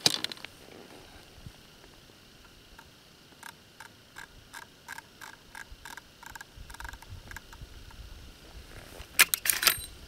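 Metallic clicks and clatter of a Marlin 1895CB lever-action rifle being handled, with no shot fired. A sharp click at the start and a run of light, evenly spaced clicks, about three a second, mid-way; near the end a louder rattling clatter as the lever is worked open.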